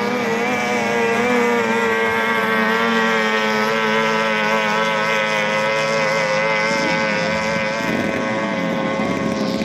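Racing boat's 18 hp outboard motor running hard at high revs, a steady high engine note that wavers slightly in pitch. A second engine tone sweeps through about two-thirds of the way in.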